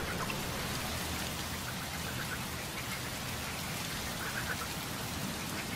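Rain falling steadily on open water, an even hiss.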